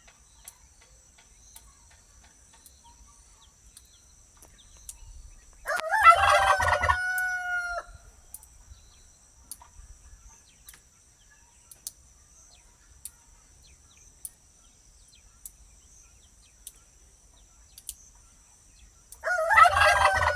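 Rooster crowing twice: one crow about six seconds in, the next beginning near the end. Each is a loud call of about two seconds that holds its pitch and then falls away.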